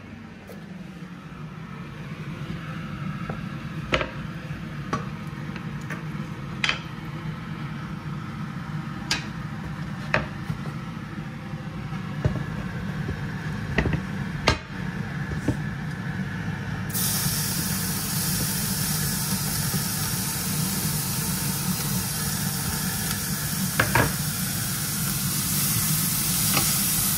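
Onion frying in melted butter in a pot: a steady sizzle that grows louder, with a spoon clicking against the pot now and then as it is stirred, over the steady hum of the cooker hood.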